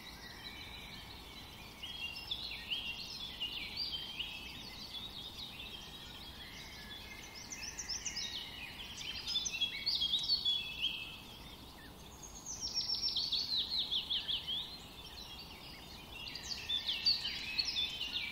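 Many small birds chirping and twittering at once, their short calls overlapping densely. Partway through, a run of rapid descending trills stands out.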